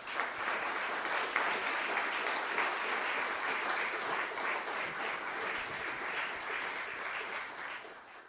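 Audience applauding, a steady dense patter of many hands clapping that starts at once and dies away near the end.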